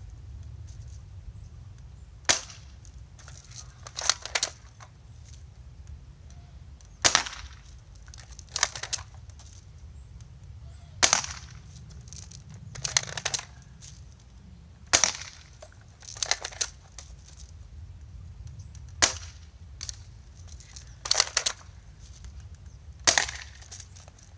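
Spring-powered airsoft M4A1 rifle fired six times, about one shot every four seconds, each shot a sharp snap. A second or two after each shot come a couple of softer clicks.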